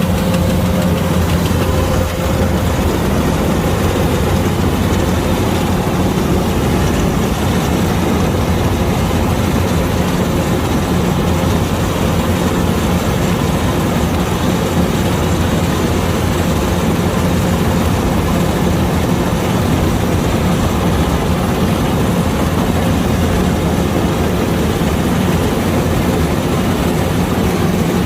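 Kubota DC-105X rice combine harvester's diesel engine running steadily under load, a loud, even, low hum with no change in speed.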